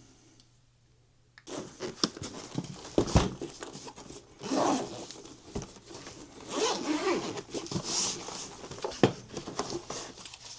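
Handling noise of equipment being set up on a workbench: a run of irregular scraping, rustling strokes and sharp clicks, starting after a brief quiet moment.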